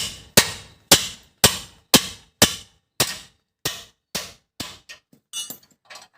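A hammer striking metal in a steady series of about a dozen blows, roughly two a second, each with a short metallic ring. The blows grow weaker near the end.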